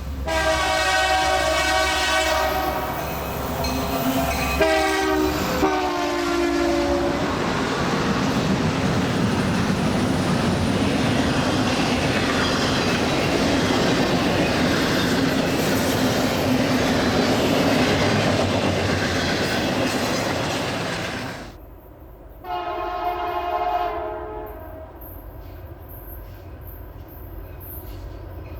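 Nathan Airchime K3LA three-chime locomotive air horns sounding at grade crossings. One horn sounds two blasts, then loud rail noise with clicking wheels as the freight train rolls past. After an abrupt cut, a second K3LA horn sounds one blast, and another starts near the end.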